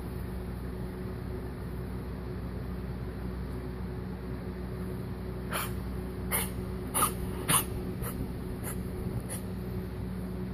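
A coughing fit: about seven short, sharp coughs in quick succession, starting about halfway in, with the two strongest near the end. A steady low hum runs underneath.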